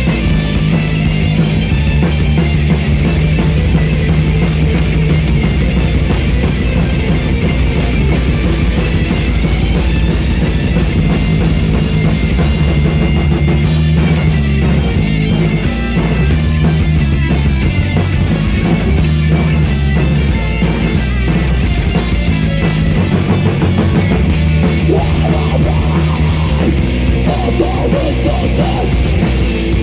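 Heavy metal band playing live: distorted electric guitars, bass and a drum kit, loud and continuous.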